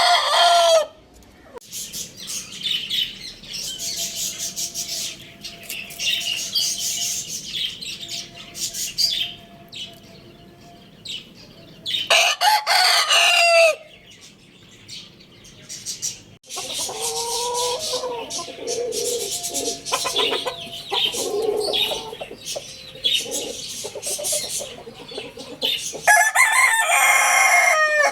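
Roosters crowing: three loud crows, one right at the start, one about twelve seconds in and one near the end. Between the crows, chickens cluck and small birds chirp.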